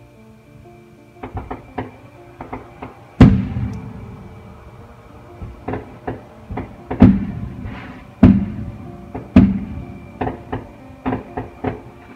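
Fireworks going off: a string of sharp bangs and pops, with four big booming blasts about 3, 7, 8 and 9 seconds in and smaller cracks between them. Quiet music plays underneath.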